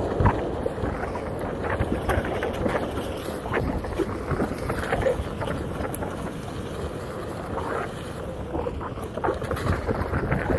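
Wind rushing over the microphone while riding a Onewheel fast along a dirt trail, mixed with the board's tyre rolling over packed dirt and grit, with irregular small crackles and knocks from bumps.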